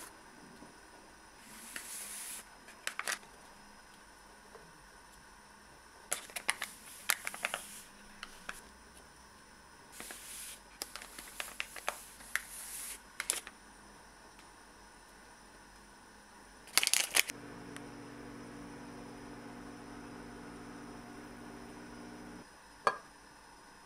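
Close-up rustling and tearing of paper stick packets of hot chocolate powder, with small taps as powder and marshmallows go into chocolate half-shells, in scattered bursts. A steady low hum runs for about five seconds near the end, followed by one sharp click.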